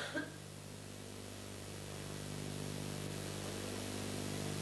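Steady electrical hum under a hiss, growing slowly louder.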